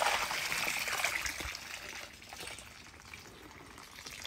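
Water streaming and dribbling off a handful of wet azolla (water fern) lifted out of the pond by hand, heaviest in the first second or two and then tapering off.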